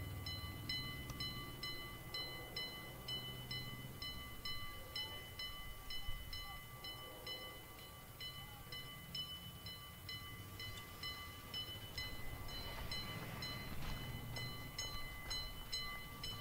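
A bell ringing steadily and faintly, about two to three strikes a second, over a low rumble.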